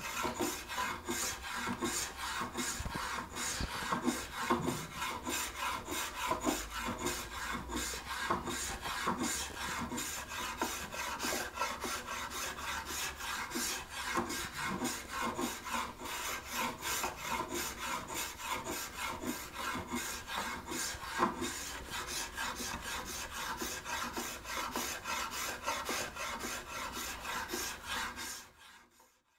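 Spokeshave slicing through the wood of a hand-carved guitar neck in quick, repeated short strokes, each a brief rasping cut, fading out near the end.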